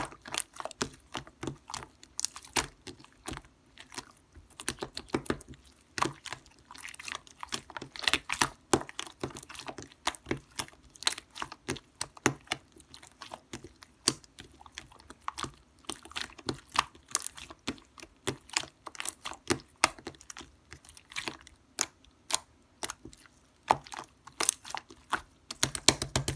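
Slime being squished and worked by hand, giving a dense, irregular run of sharp wet clicks and pops throughout.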